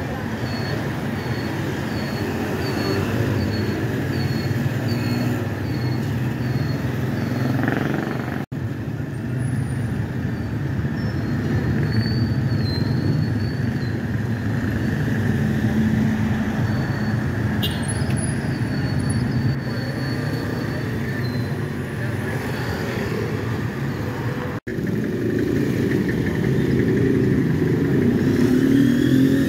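Street traffic noise: vehicle engines running and passing in a continuous rumble. A faint high chirp repeats about twice a second in the first few seconds, and the sound drops out for an instant twice.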